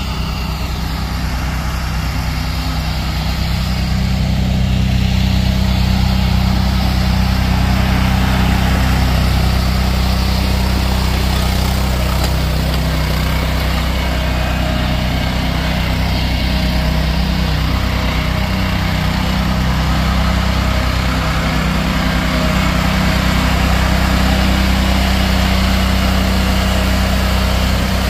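Small engine of a stand-on lawn machine running steadily as it is driven slowly, a low even hum that grows louder a few seconds in.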